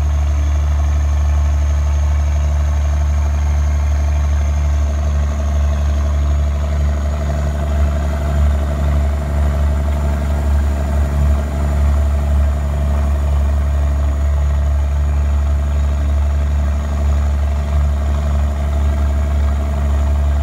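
M35A2 deuce-and-a-half army truck's multifuel turbo-diesel inline-six running steadily as the truck drives through deep floodwater, heard from inside the cab: a deep, even drone with a thin high whine above it.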